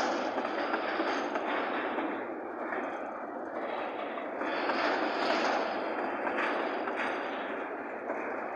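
Freight train wagons rolling past: a steady, rough noise of steel wheels on the rails that swells and eases, with occasional clicks.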